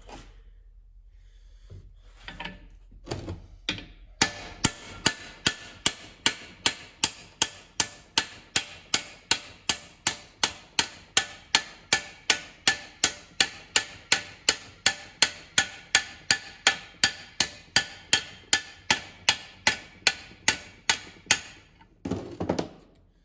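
Hammer blows on steel at a steady pace of about three a second for some seventeen seconds, each strike ringing, driving a stubborn, rust-seized part out of a vintage Allis-Chalmers B tractor transmission. A few lighter knocks come first, and a short clatter near the end.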